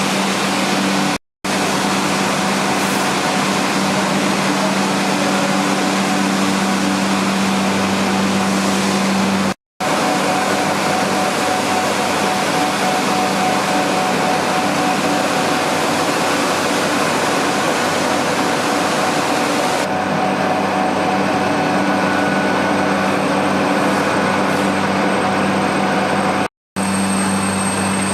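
Machine-shop machinery running with a steady hum and whirring noise, broken three times by a momentary drop to silence.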